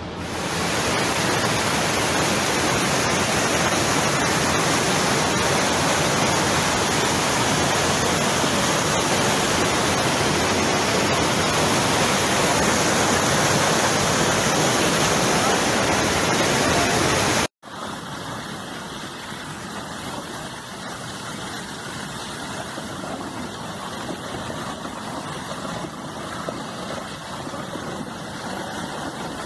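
Floodwater rushing in a torrent: a loud, steady rush of water that cuts off suddenly a little past halfway, followed by a quieter steady rush of flowing muddy water.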